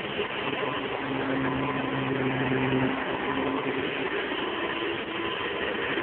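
Hoover Convertible upright vacuum cleaner running steadily, motor and airflow rushing as it is pushed along the floor, its brush roll turning on freshly fixed bearings.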